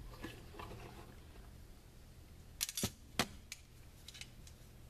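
Small steel bolt and washer clicking against the metal speed square as they are fitted into its layout bar. A few sharp clicks come a little past halfway, followed by some lighter ticks.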